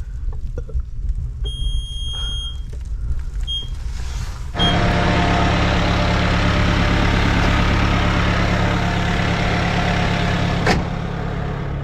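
Bobcat S70 skid steer: a few short high beeps, then its diesel engine starts about four and a half seconds in and runs at a steady idle to warm up. A sharp click near the end, after which it runs a little quieter.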